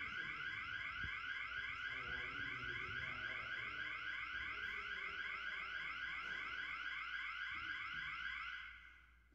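Electronic alarm sounder giving a rapid, repeating rising sweep, about four sweeps a second, fading out near the end.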